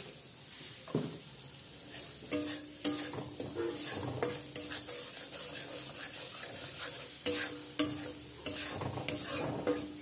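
A metal spatula stirring and scraping spice masala that is sizzling in oil in a steel kadai. After a quieter stretch of steady sizzle, repeated scrapes and knocks of the spatula against the pan begin about two seconds in.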